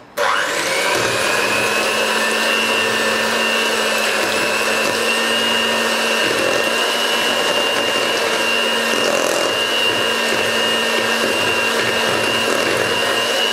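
Philips electric hand mixer switching on and spinning up, then running steadily at its lowest speed with a high motor whine and hum, its beaters whisking a still thin, lumpy mix of cream cheese, heavy cream and powdered sugar in a stainless steel bowl.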